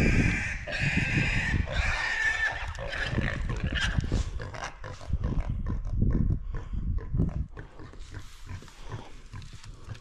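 Wild boar squealing in high, wavering cries for about four seconds, just after being hit by a shotgun shot. Heavy low rustling follows until about eight seconds in.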